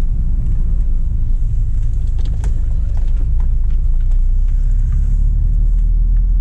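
Steady low rumble of engine and road noise inside the cabin of a Volkswagen Golf Mk4 driving slowly, with a few faint clicks.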